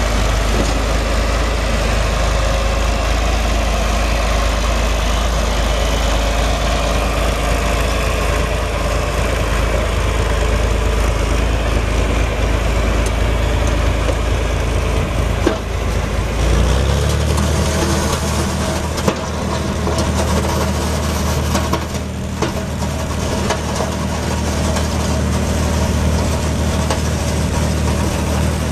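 John Deere 4020's six-cylinder diesel engine running steadily. Its low drone shifts to a different pitch a little after halfway through.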